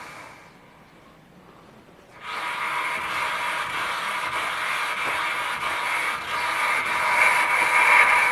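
Cordless drill with a rubber disc driving a motorcycle wheel round by its tyre while a cutter skims the brake drum in a light finishing pass. The running sound dies away at the start, then starts again suddenly about two seconds in as a steady whir with a high whine, growing louder toward the end.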